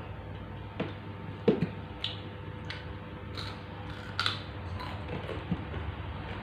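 Eating sounds of grilled meat eaten with the fingers: irregular wet clicks and smacks of chewing and handling the food, the loudest about one and a half seconds in, over a steady low hum.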